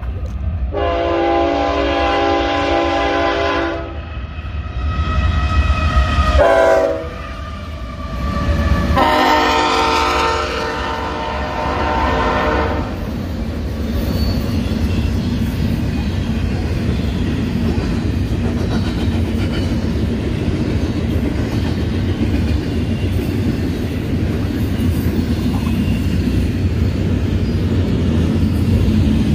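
Freight train horn from GE diesel-electric locomotives, sounded in three blasts as the train comes by; its pitch drops during the second blast as the locomotive passes. After that comes the steady rumble and rattle of the double-stack intermodal cars rolling past at speed.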